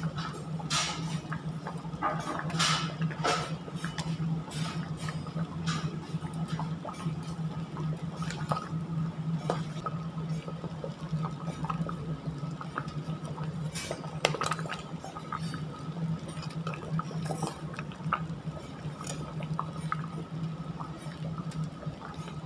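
Thick black bean sauce bubbling in a large stainless steel pot, with scattered pops and the clink of a metal ladle against the pot, over a steady low hum.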